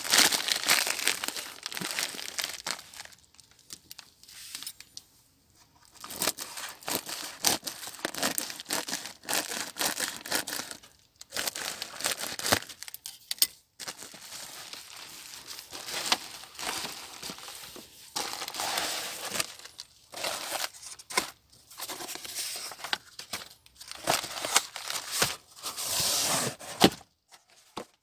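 Clear plastic bubble mailer being torn open and crinkled by hand to unpack a book, in irregular bursts of rustling broken by short pauses.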